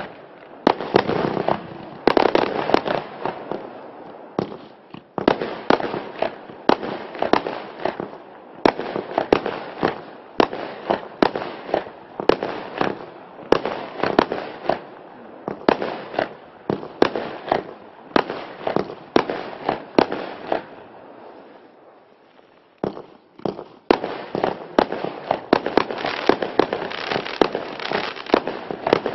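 Klasek F3 compound firework cake, a 536-shot battery, firing shot after shot at about two bangs a second, pausing briefly about three-quarters of the way through before firing again.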